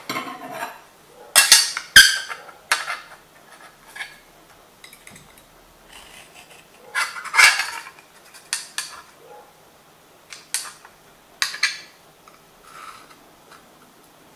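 A steel engineer's square knocking and sliding against an aluminium sheet while a scriber scratches lines along its edge. Short metallic clinks and scrapes come in a few clusters: about a second and a half in, around seven seconds in, and again near eleven seconds.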